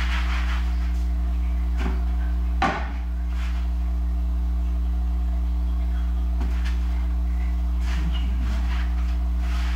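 Hands kneading a sticky glutinous-rice-flour dough on a floured countertop, soft rubbing and pressing over a steady low hum. A single sharp knock a little under three seconds in, as a bowl or utensil is set down on the counter.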